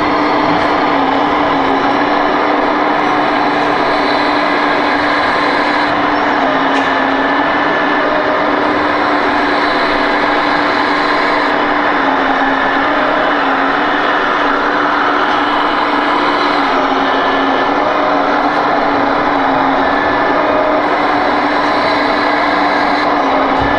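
Sound module of a radio-controlled Hitachi Zaxis excavator model playing a steady diesel engine sound through its speaker, its pitch stepping slightly up and down as the machine digs. Under it runs a steady mechanical hum.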